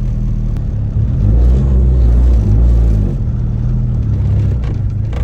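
Turbocharged Honda Civic engine running at low revs, the pitch rising and falling as the throttle is eased on and off to creep the car along. It gets louder about a second in.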